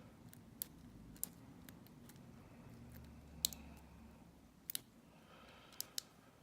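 Faint, irregular metallic clicks of a lock pick working the pin tumblers of a small Lockwood padlock under tension, about seven clicks scattered over several seconds.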